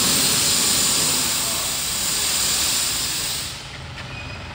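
Pressurized natural gas hissing out of a car's CNG cylinder as the oil collected inside is blown out. The hiss cuts off abruptly about three and a half seconds in.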